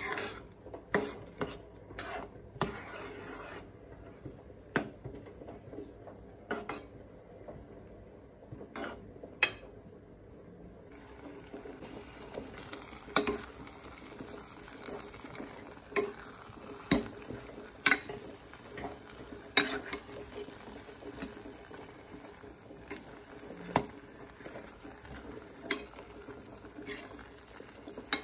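A metal spoon stirring thick, sticky glutinous rice in coconut milk in a pot, with irregular clinks and knocks as it hits the pot. A faint steady hiss sets in about a third of the way through.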